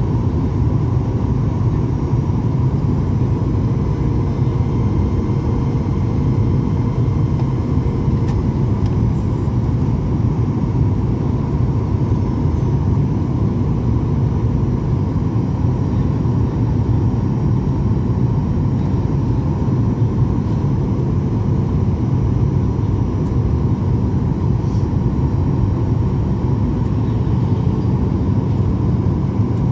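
Boeing 737-800 aircraft noise: a steady low rumble with a faint, even whine above it, unchanging throughout.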